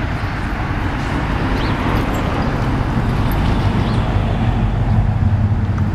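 A large engine running steadily with a low, even hum, a little louder about four seconds in.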